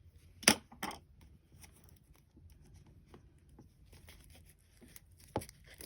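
Small craft-supply package being opened and handled by hand: a few sharp clicks, the loudest about half a second in, with faint crinkling and rustling between them.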